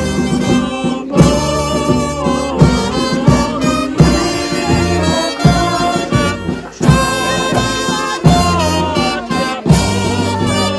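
Music played on brass instruments, trumpet-like tones with vibrato over a steady, evenly spaced drum beat.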